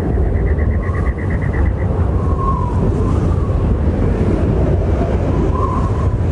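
Strong wind blowing through bare desert shrubs, a deep, steady rush. A fast pulsing trill sounds in the first two seconds, and a few faint short chirps come later.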